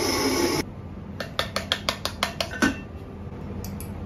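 A short rushing hiss that cuts off suddenly under a second in, then a thin rod stirred in a drinking glass, clinking against the glass about ten times in quick succession.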